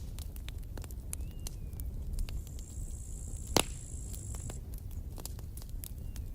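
Campfire crackling, with scattered sharp snaps over a steady low rumble and one loud pop about halfway through. A thin high whine comes in for about two seconds around the middle.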